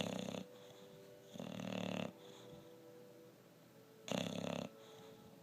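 English bulldog snoring loudly in its sleep: three separate snores, the second the longest at nearly a second, with quiet gaps between them.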